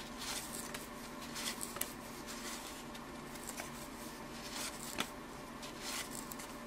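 Faint rustling and small ticks of cardboard baseball cards (1983 Topps) being slid off a stack and flipped through by hand, over a low steady hum.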